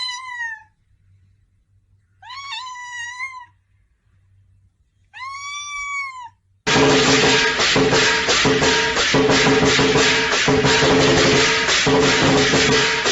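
A cat meows three times, the last a long meow that rises and falls in pitch. About halfway through, loud music with a steady beat cuts in suddenly.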